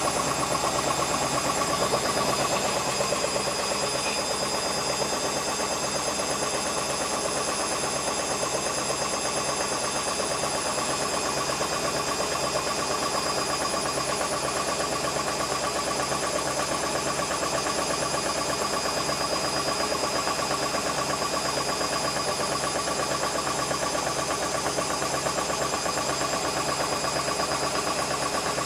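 Beko WM5101W front-loading washing machine running its cycle, a steady mechanical drone with a constant whine held at an even pitch throughout.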